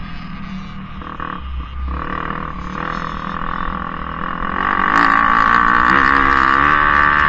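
Dirt bike engine running under throttle, revving up and getting louder about five seconds in, then holding at high revs.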